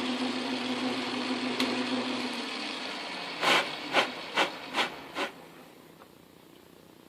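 Montgomery Wards Logan metal lathe running with a steady motor hum that fades as it spins down from about two seconds in, followed by five short, sharp strokes a little under half a second apart.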